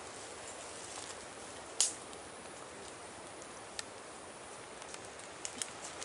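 Steady, even forest ambience with one sharp, short click or snap about two seconds in, and a few fainter clicks near the end.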